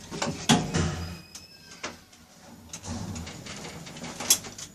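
Lift doors sliding, with a low mechanical hum and several sharp clicks and knocks. The loudest click comes near the end.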